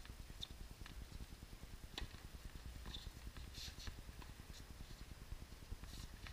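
Faint, scattered sharp knocks of tennis balls being hit and bounced on a hard court, the loudest about two seconds in, over a low steady rumble.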